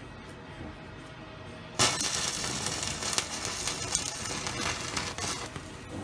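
Stick-welding arc with a 6010 rod crackling and sizzling on an exhaust pipe. It strikes up suddenly about two seconds in, burns for a few seconds and cuts off shortly before the end.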